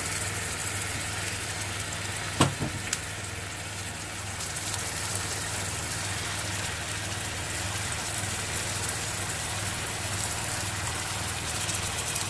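Butter-and-sugar caramel sizzling steadily in a nonstick frying pan as apple quarters are set into it, over a low steady hum. A sharp click about two and a half seconds in, with a couple of lighter ones just after.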